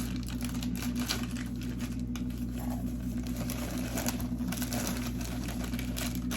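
Rustling of a cake-mix bag and dry mix being poured and handled at a bowl, over a steady low electrical hum.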